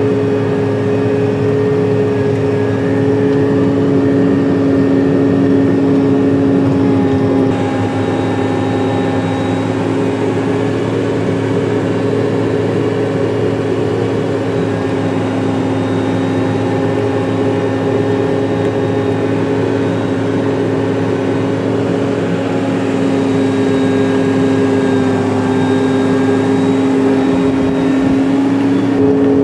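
Caterpillar Challenger 55 tractor's diesel engine running steadily, heard from inside the cab as a constant drone with a held whine.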